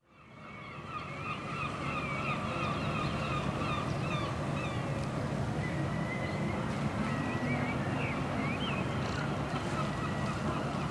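Birds calling over a steady low rumble and background noise, fading in over the first second.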